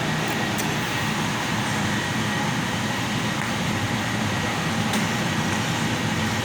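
Steady mechanical hum with an even rushing noise, a few faint clicks in it.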